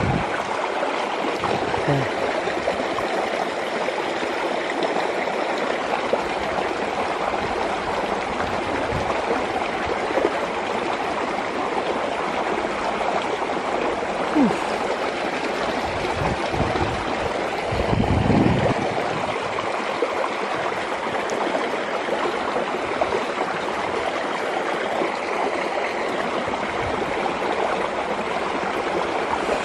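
Fast-flowing, rain-swollen stream rushing steadily over rocks through a stone culvert. A short low rumble breaks in about eighteen seconds in.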